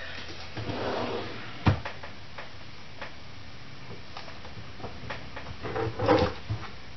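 Desk handling noises while working with paper and sticker sheets: soft rustling, a sharp click or tap about a second and a half in, and another short burst of rustling and knocking near the end.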